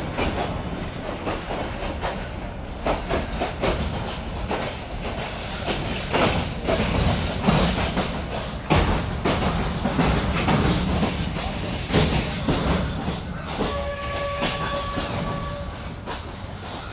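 Passenger train heard from inside a carriage, running with a steady rumble and irregular clacks and knocks from the wheels and coach. Near the end the train's horn sounds once, a single steady blast of about two seconds.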